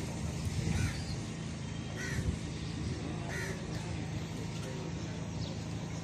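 Crows cawing a few times over a steady low hum.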